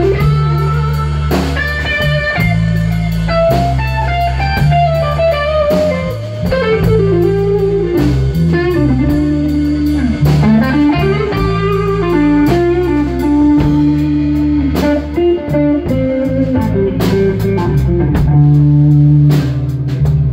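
Blues band playing an instrumental break: an electric guitar solo with bending, sliding notes over bass guitar and drum kit.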